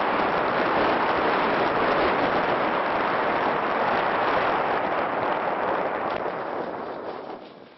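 Steady rushing noise from an FPV drone in flight, propeller wash and wind over the microphone, fading away near the end.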